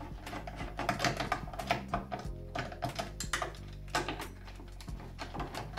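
Hand screwdriver clicking and scraping at irregular intervals as screws are backed out of the metal CRT mounting frame, over upbeat instrumental background music.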